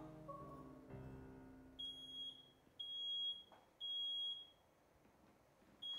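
Smoke alarm sounding in its three-beep pattern: three high, steady half-second beeps a second apart, starting about two seconds in, as soft piano music fades out.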